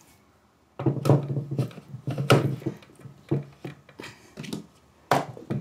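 A stainless steel mixer-grinder jar knocking and clattering as it is set down onto its plastic motor base and locked into place, with its lid fitted: a string of sharp knocks and scrapes starting about a second in.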